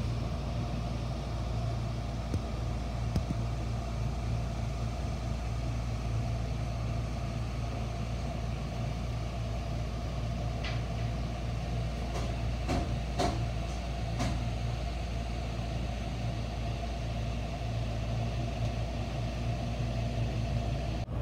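Steady low machine hum, with a few light clicks about halfway through.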